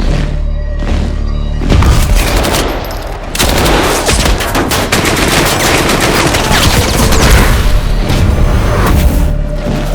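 Gunfire and explosion sound effects: deep booming rumble, then from about three and a half seconds in, sustained rapid automatic gunfire with many overlapping shots, over a bed of music.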